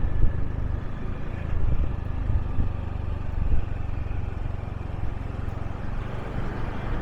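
Motorbike engine running steadily while riding, a low rumble with a few brief louder bumps.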